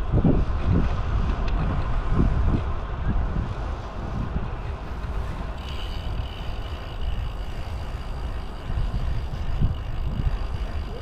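Wind buffeting the microphone of a camera on a moving bicycle: a low, gusty rumble that surges in the first few seconds. About six seconds in, a faint steady high-pitched whine joins it.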